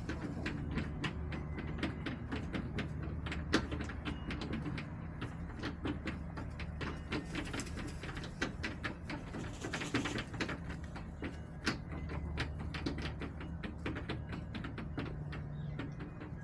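Backyard hens pecking: a rapid, irregular run of sharp taps and clicks, a few each second, over a steady low hum.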